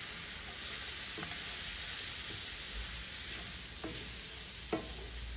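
Chopped onions and bell peppers sizzling in oil in a pan on a gas grill, being fried soft, while a wooden spatula stirs them. There are a few light knocks, about one, four and five seconds in.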